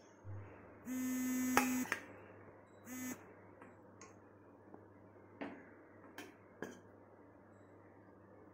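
A steady buzzing tone sounds for about a second, then again briefly about three seconds in. A few light clicks and knocks of a serving spoon against the cooker pot follow.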